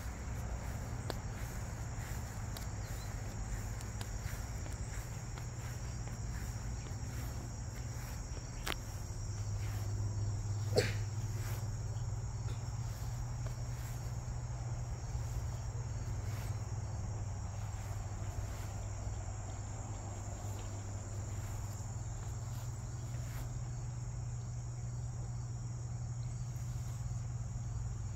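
Crickets chirping steadily in a summer garden, over a low steady hum. One brief sharp sound stands out about eleven seconds in.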